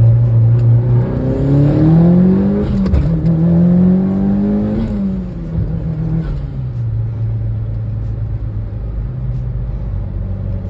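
Mitsubishi Lancer Evolution VIII's turbocharged four-cylinder engine pulling up through the revs, with a brief dip about three seconds in like a gear change, rising again, then easing off and settling to a steady drone.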